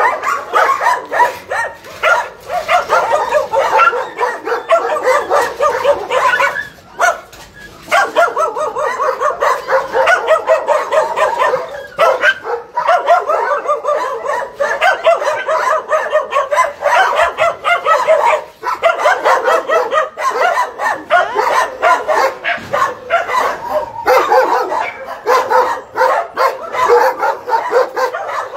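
Dogs in shelter kennels barking and yelping at once, a dense overlapping din that eases for a moment about seven seconds in.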